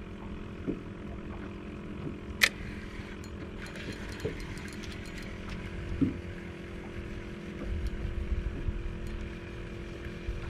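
Steady motor hum, with one sharp click about two and a half seconds in and a patter of faint ticks a second or so later, as a fish is hooked and reeled in on a spinning rod.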